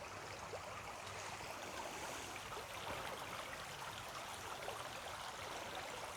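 Faint, steady rush of a creek running.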